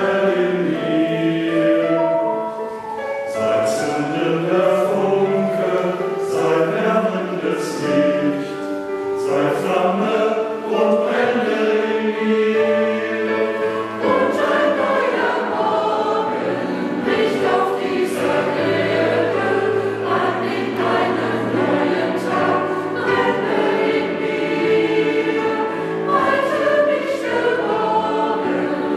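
Mixed church choir of men's and women's voices singing a hymn in parts under a conductor.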